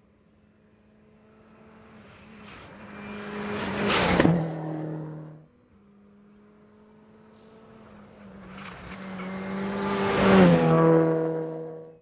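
Two rally cars flat out on a gravel stage, one after the other: each engine note builds in loudness as the car approaches, peaks as it passes close, and drops in pitch as it goes by.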